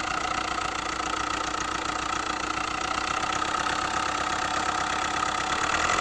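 Hyundai i20's four-cylinder common-rail diesel engine idling with a heavy, fast knocking clatter from inside the engine, described as a great deal of noise. It is an abnormal internal engine noise that persists even after the connecting-rod bearings, hydraulic lash adjusters and timing chain were replaced, its cause not yet found.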